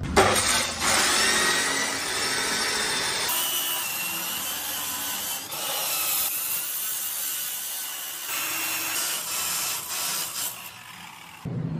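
Abrasive cut-off chop saw grinding through steel square tubing: a harsh, steady grinding hiss with a wavering whine from the spinning wheel. The sound changes abruptly a few times, as when separate cuts are spliced together.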